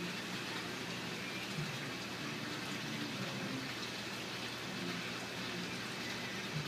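Steady, even watery hiss of a saltwater aquarium's circulation and rising air bubbles.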